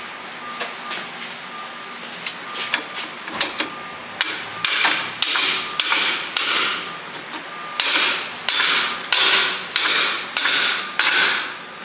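Big hammer driving a new pinion yoke onto the splined pinion shaft of a Jeep JK Dana 30 front axle, metal on metal. A few light taps, then about four seconds in two runs of heavy blows, about two a second, each ringing briefly, with a pause of about a second between the runs.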